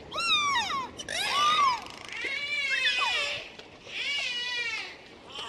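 Dolphin whistling: four high calls, each about a second long, sliding up and down in pitch.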